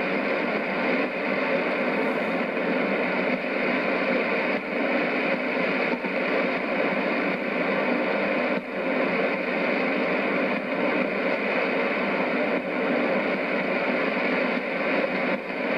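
Shortwave receiver in AM mode tuned to 6070 kHz, putting out a steady rush of static and noise with no clear speech or music coming through.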